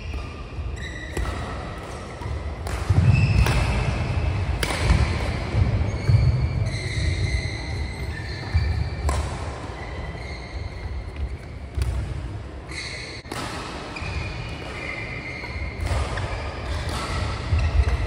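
Badminton singles rally: rackets striking the shuttlecock every one to three seconds, with shoes squeaking and feet thudding on the court mat in a large hall.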